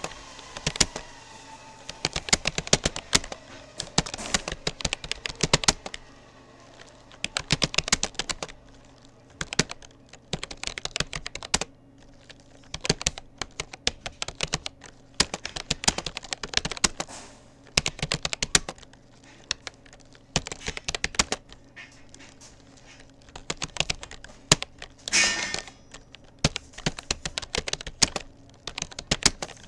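Rapoo computer keyboard being typed on fast, the keys clicking in quick bursts word by word with short pauses between them. A brief, louder noise comes near the end.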